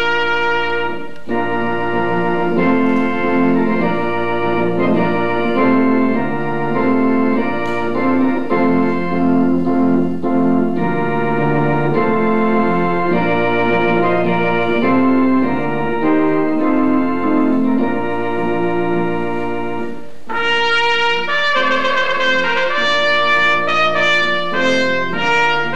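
Organ and trumpet music: slow, held chords, turning to quicker, brighter notes about twenty seconds in.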